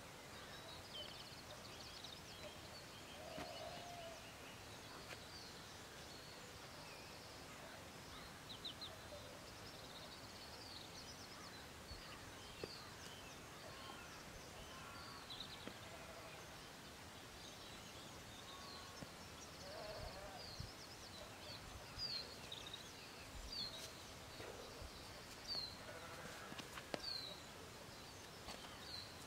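Wild birds singing and calling: many short high chirps and trills over faint outdoor background noise, with a few louder, sharp downward chirps in the second half.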